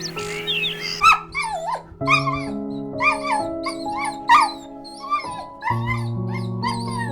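Soothing background music with held notes, over which an animal gives a run of short, high, sliding cries, about two a second, starting about a second in.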